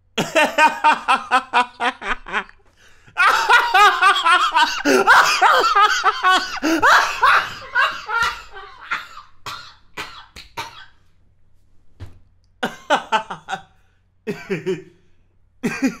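A man laughing in several separate bouts. A quick run of ha-ha pulses opens it, and a long loud laugh with its pitch swooping up and down starts about three seconds in and trails off into short bursts. Shorter bursts of laughter come near the end.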